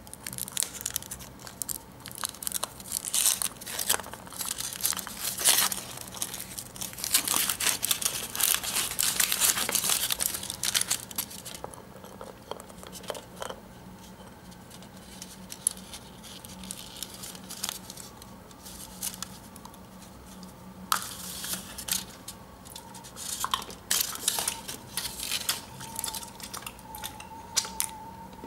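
Thin foil wrapper crinkling and tearing as it is peeled off a chocolate egg. It comes in dense bursts for the first ten seconds or so, then quieter handling, with more crinkling in the last third.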